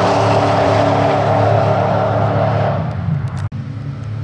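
Supercharged Holden VF Commodore SS 6.2-litre V8 running flat out down a drag strip, a loud steady engine note that fades away near three seconds in as the car pulls away. After a sudden break, quieter engines idle at the start line.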